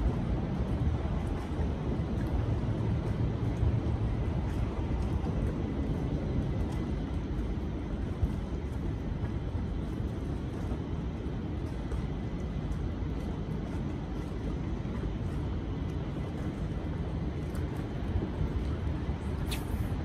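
Steady low rumble of distant city traffic.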